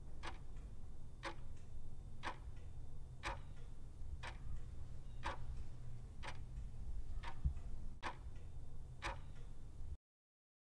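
Clock-ticking sound effect, about one tick a second over a low steady hum, cutting off after ten ticks: a countdown timer giving thinking time for a quiz question.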